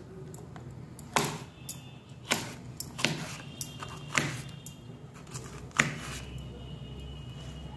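Kitchen knife slicing a green bell pepper on a plastic cutting board: sharp knocks of the blade striking the board, about five loud strokes at irregular intervals roughly a second apart, with a few lighter taps between.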